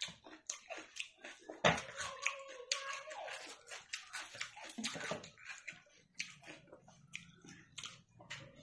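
Wet eating sounds of a person eating rice and egg curry by hand: close, moist chewing and lip-smacking clicks, with fingers squelching the rice and curry against a steel plate.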